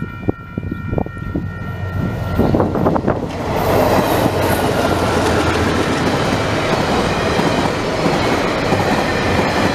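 A diesel-hauled container freight train passing close by. During the first two seconds, as it approaches, there is a held high tone made of several notes and some clicking. The tone stops, and from about three and a half seconds the locomotives' low engine drone and the loud, steady rumble and clatter of the wagons' wheels on the rails take over.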